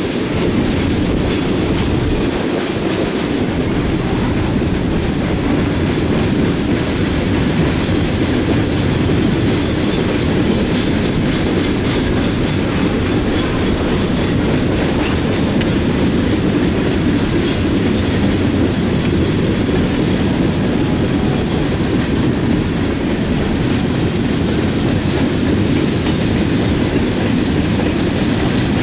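Freight train of open hopper cars rolling past, with a steady heavy rumble and the wheels clicking over the rail joints.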